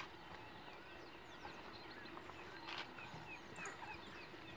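African wild dogs twittering at a kill: many short, high, falling squeaks, several a second, faint, with a couple of brief clicks among them.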